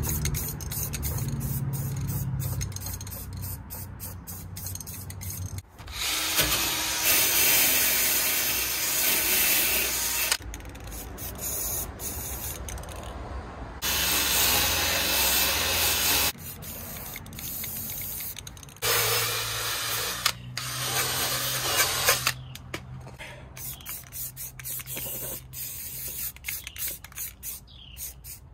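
An aerosol can of rust inhibitor spraying in several long hissing bursts onto a rusted steel rocker panel. Around the middle, a cordless drill with a wire wheel scrubs loose rust off the panel.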